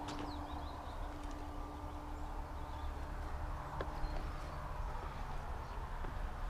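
Outdoor ambience with a low steady rumble and birds chirping faintly. A few scattered footsteps or knocks on gravel and metal come through now and then.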